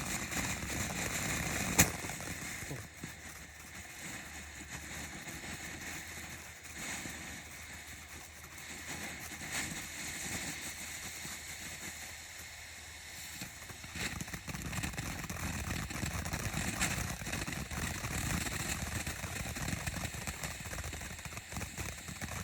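Ground fountain firework spraying with a steady hiss and crackle, with one sharp pop about two seconds in. The sound dips for a while in the middle, then picks up again in the last third.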